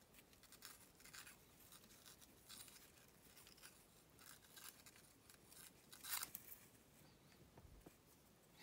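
Faint rustling and scraping of satin knotting cord as it is drawn through the loops of a knot and tightened by hand, with a louder swish of cord about six seconds in.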